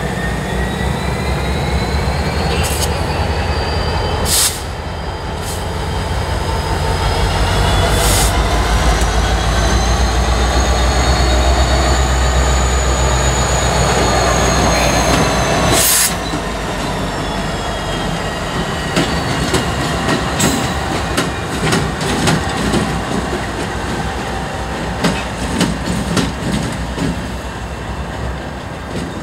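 Norfolk Southern diesel-electric locomotives passing slowly, their engines a loud low drone, with thin high-pitched wheel squeal slowly rising and falling above it. In the last part the drone eases and wheels click sharply over rail joints.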